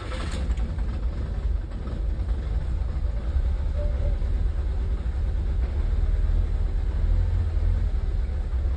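Nissan Sentra's fuel-injected engine catching just at the start and then idling, steady and low-pitched. The idle is hunting and uneven, a sign of misfiring.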